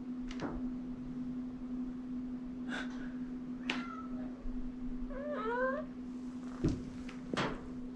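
Black Chausie kitten meowing: two short calls about three and four seconds in, then a longer meow with a rising, wavering pitch about five seconds in. A steady low hum runs underneath, with a few sharp clicks.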